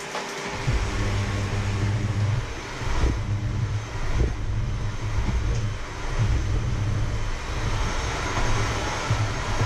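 Electric hand mixer switching on about half a second in and running steadily, its beaters churning food in a stainless steel bowl, with a couple of knocks of the beaters against the bowl.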